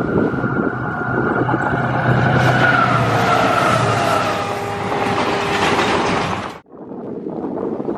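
Electric train passing at speed: a loud rush of wheels and air that builds over the first few seconds, with whining tones sliding down in pitch as it goes by. The sound cuts off suddenly near the end, replaced by quieter, lower noise.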